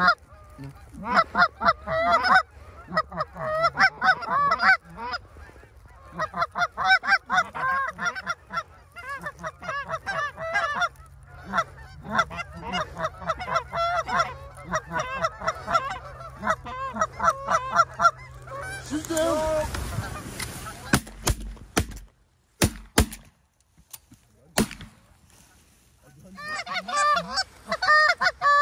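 Canada geese honking, many short honks in quick succession from flocks overhead. Honking gives way to a few sharp clicks about two-thirds of the way through, then resumes near the end.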